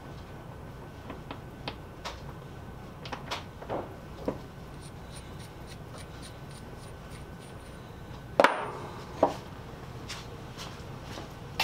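Light metallic clicks of a steel nut being handled and turned on a piece of steel threaded rod, then a sharp metal clunk with a short ring about eight seconds in and a second knock soon after, as the metal pieces are set down.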